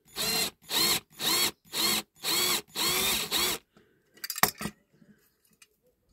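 Cordless drill run in six short trigger pulls, its motor whining up and falling back in pitch each time, as it drills the head off a rivet holding a diecast toy car's base. About four and a half seconds in, a few sharp knocks.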